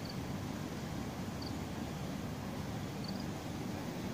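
Steady low outdoor rumble, with faint short high chirps repeating about every second and a half.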